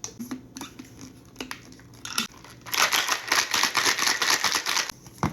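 Ice cubes clinking and rattling against a glass: a few separate clicks, then a fast run of clicks for about two seconds.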